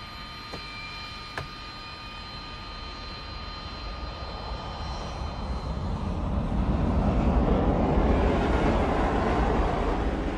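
F-15 fighter jet's engines: a steady high turbine whine, then a broad jet roar that swells from about four seconds in and peaks a few seconds later as the jet takes off.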